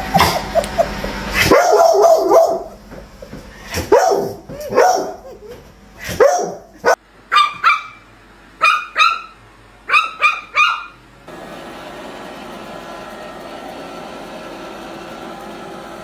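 A dog barks repeatedly, ending in a string of sharp, high barks that stop about eleven seconds in. A steady hiss follows to the end.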